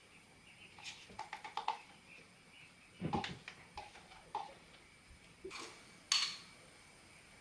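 Kitchen handling noises: a run of light clicks, then scattered knocks of dishes and utensils, with a sharper knock near the end.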